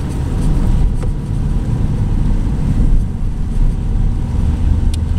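Cabin sound of a Mini One diesel driving slowly on a wet lane: a steady low rumble of engine and tyres on the wet road, with a couple of faint clicks about a second in and near the end.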